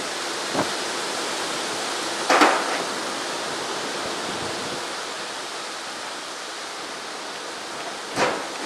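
Steady hiss of heavy rain in a strong thunderstorm, with a few short sharp knocks, the loudest about two and a half seconds in and another near the end.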